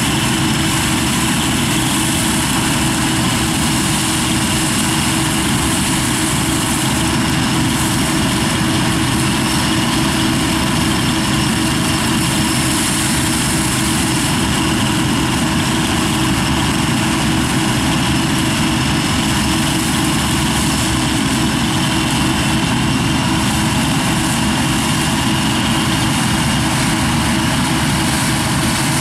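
Claas Dominator 88 SL combine harvester running steadily while threshing rye: its engine and threshing machinery make a continuous heavy drone, with a steady high whine over it.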